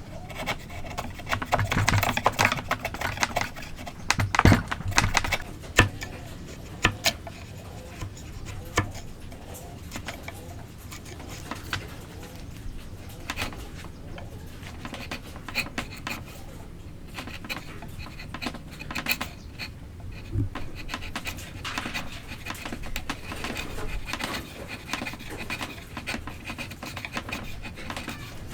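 Hand tools working wood: irregular taps and knocks with scraping and rubbing of tools on timber, as joints are cut and fitted.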